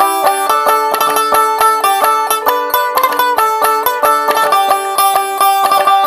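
Background music: a fast, bright tune of quickly picked plucked strings, with the notes coming in a rapid, even stream.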